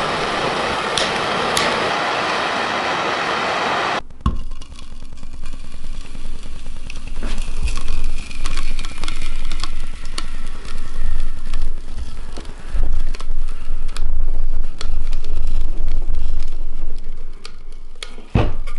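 Three propane blowtorches hissing, cutting off abruptly about four seconds in. Then scattered crackles and low rumbling as a red-hot kitchen knife melts its way down through a spool of fluorocarbon fishing line.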